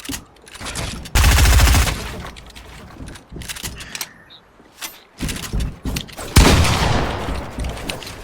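A short burst of rapid automatic gunfire about a second in, lasting under a second, followed by scattered quieter knocks. Near the end comes a second loud, sudden noise that dies away over a second or so.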